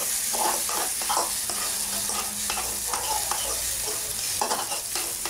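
Egg and sliced meat frying in a pan with a steady sizzle, stirred with a utensil that scrapes against the pan in short, irregular strokes.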